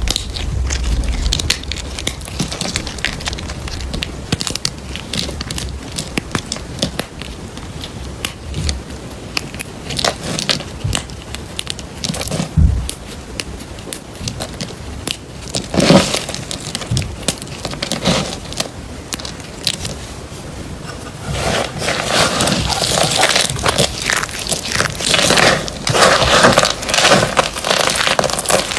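A knife cutting through dry bar soap: crackling and scraping strokes with crisp little clicks as the blade breaks through, growing denser and louder a little past two-thirds of the way in.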